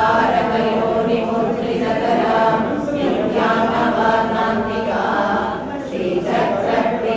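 Several voices chanting together in a devotional chant, in held phrases a second or two long with short breaks between them.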